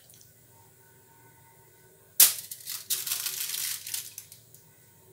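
A sharp clack about two seconds in, followed by a few clicks and about a second of rustling, scraping noise: things being handled in a kitchen.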